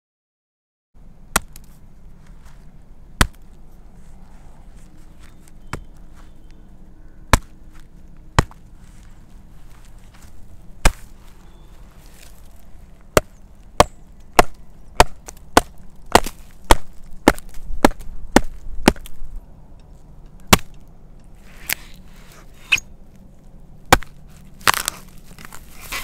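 A blade chopping into wood in sharp separate strokes, slow and irregular at first, then a quicker run of about two strokes a second through the middle.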